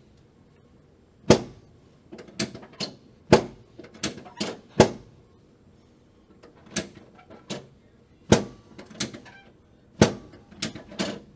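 A chiropractic adjustment of the lower back on a treatment table: a series of sharp knocks and clacks, about sixteen, coming in irregular clusters of two to four with short pauses between them.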